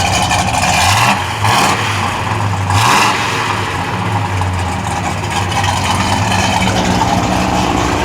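1968 Chevelle SS's 396 big-block V8 revved three times in quick blips in the first three seconds, each rising and dropping back, then settling to a steady idle.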